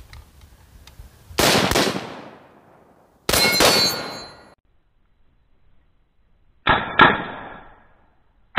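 Shots from an A2-style AR-15 rifle (Bushmaster XM15-E2S, 5.56): two single shots about two seconds apart, each echoing away. Near the end come two sharp cracks a third of a second apart with a metallic ring after them, a steel target being hit.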